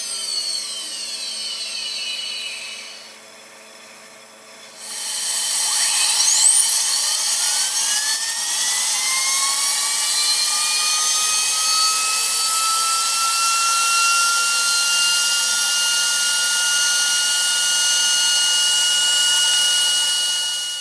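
High-speed grinding spindle of a Tripet MUS-100 grinder winding down after being switched off, its whine falling in pitch. About five seconds in it is switched back on and the whine rises in pitch over several seconds as the spindle spins up, settling into a steady high whine at running speed.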